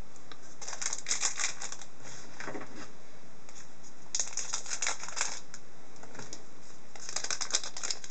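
Trading cards and a foil pack wrapper being handled: four short bursts of crinkling and clicking, with quiet gaps between.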